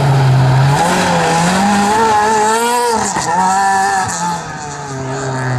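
Renault Clio R3 rally car's four-cylinder engine revving hard while the car slides through a gravel corner at close range. The pitch rises and falls with throttle and gear changes, with a sharp drop and climb about halfway through, and the engine grows quieter near the end as the car moves away.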